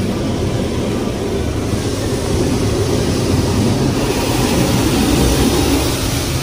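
Water jets of an automatic car wash spraying against the car's body and windows, heard from inside the cabin as a loud, steady rushing that turns hissier about two seconds in.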